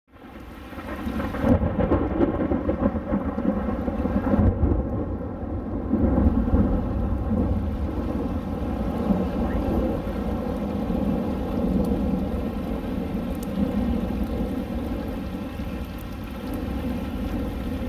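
Thunder rolling and rumbling over steady rain, swelling several times in the first six seconds and slowly dying away after.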